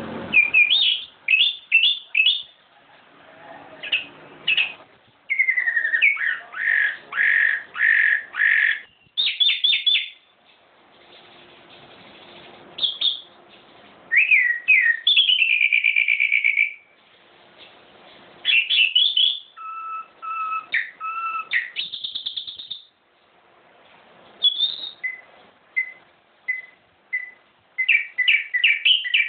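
Songbird singing in a long series of short, varied phrases of whistles, rapid trills and pitch glides, with brief pauses between phrases.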